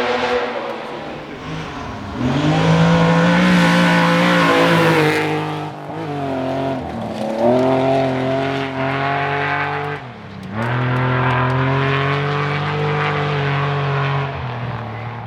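Historic rally car engine running hard at high revs, with brief lifts off the throttle or gear changes about 2, 6 and 10 seconds in, each followed by the revs climbing again.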